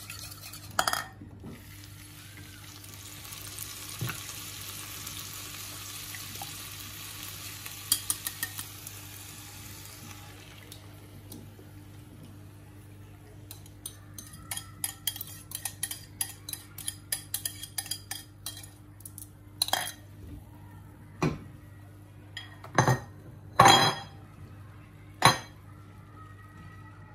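Potato slices frying in a pan with a soft sizzle, then a spoon scraping and tapping a ceramic bowl in quick ticks as beaten egg mixture is poured over them, followed by several loud clinks of bowl and utensils against the pan. A steady low hum runs underneath.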